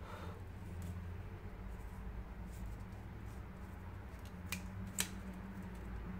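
Small sharp clicks and taps of a soldering iron and wires being handled while soldering a drone's ESC leads, the sharpest about five seconds in, over a low steady hum.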